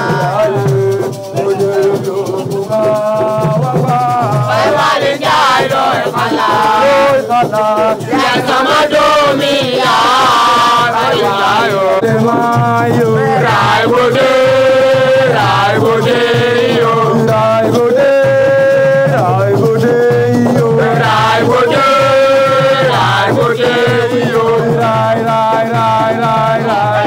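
Music with a singing voice carrying a melody over a steady beat, with a shaker rattle keeping time.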